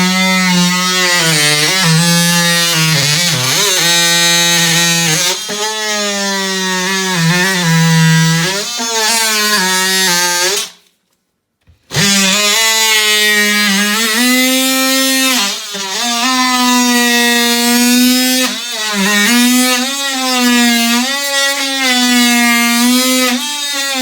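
DeWalt 18V cordless oscillating multi-tool cutting through OSB board: a loud, steady buzz whose pitch dips and wavers as the blade loads in the wood. It stops about eleven seconds in, then starts again a second later at a slightly higher pitch.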